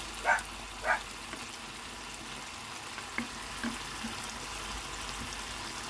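Shrimp simmering in butter and their own released juices in a frying pan: a steady soft sizzling hiss. The pan has no added water, so the shrimp cook in the liquid they give off. Two brief louder sounds come about half a second apart near the start.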